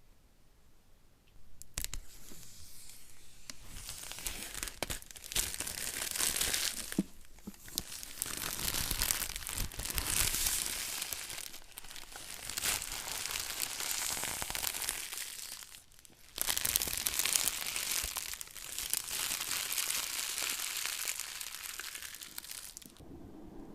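Packaging being torn open and crinkled by hand, in long, irregular stretches of tearing and rustling that start about two seconds in, pause briefly about two-thirds of the way through, then carry on until shortly before the end.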